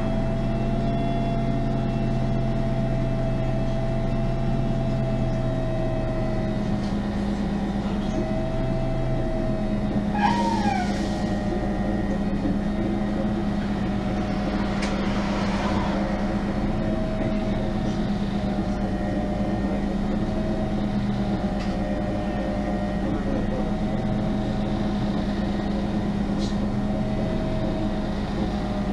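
Interior sound of a MAN NG 273 articulated city bus with an LPG engine and Voith automatic gearbox: the engine and driveline run steadily with a wavering whine, the engine note shifting about seven seconds in. A brief falling squeak comes about ten seconds in.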